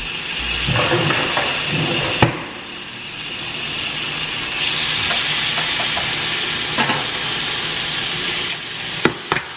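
Chicken frying in oil in a pot: a steady sizzle, with a sharp knock about two seconds in and a few quick taps near the end.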